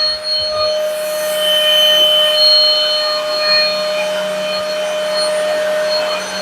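MIUZZY cordless stick vacuum's brushless motor running with a steady high whine while it sucks up spilled coffee grounds. A rushing hiss comes in about a second in and fades out by about two and a half seconds.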